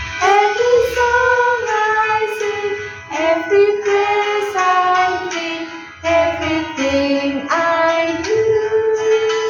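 Voices singing a Christmas praise song with instrumental accompaniment, in phrases that break off briefly about three and six seconds in.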